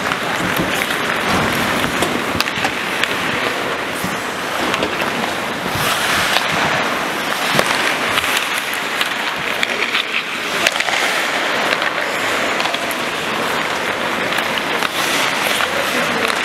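Ice hockey skates scraping and gliding on the rink, with frequent sharp clacks of sticks hitting the ice.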